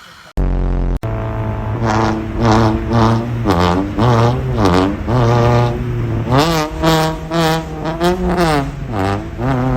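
A loud, low droning tone rich in overtones, its pitch sweeping up and down again and again, about twice a second, with brief breaks near the start.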